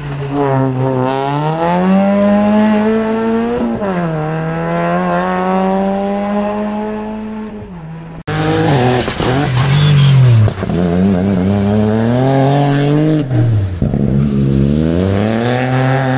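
Suzuki Swift rally car's engine revving hard as it pulls away from a hairpin, its pitch climbing and dropping back through a couple of upshifts, then fading as the car drives off. After a sudden cut about halfway through, a second rally car's engine revs up and down through a bend, its pitch dipping and rising again with each lift and re-acceleration.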